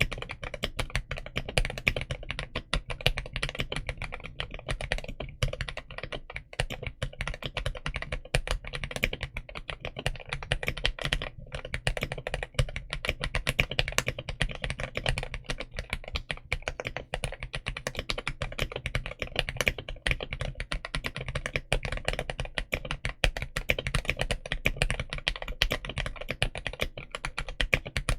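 Modded RoyalAxe L75 mechanical keyboard with Gateron Yellow Pro linear switches being typed on continuously, a fast stream of keystrokes.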